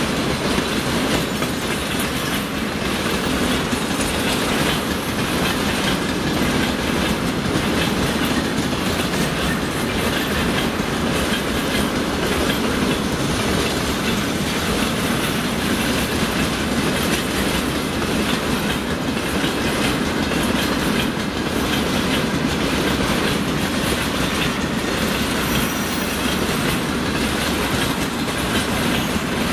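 Freight train of railway tank cars rolling past, the wheels running over the rails at a steady, even level.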